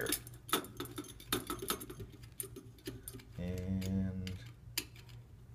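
Light metallic clicks and taps of stainless steel grill rods and tubes knocking together as a leg is screwed into the frame. About three and a half seconds in a low steady tone sounds for about a second.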